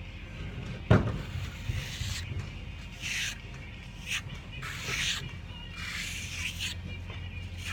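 Metal trowel scraping across a panel as primer is spread on, a series of short rasping strokes. A sharp knock about a second in is the loudest sound.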